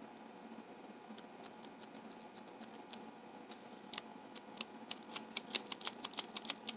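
Quick, irregular run of sharp small metallic clicks, starting about four seconds in and growing louder toward the end: a key being worked in the cylinder of a freshly re-keyed Sargent 758 padlock to test it.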